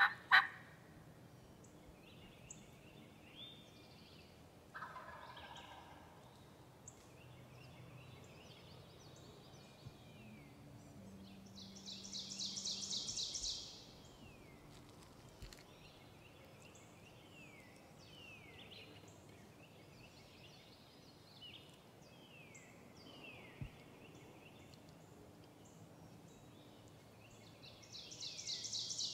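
Wild turkey gobbling twice, a quick rattling gobble about twelve seconds in and another near the end, over faint chirps of small birds. A sharp click right at the start.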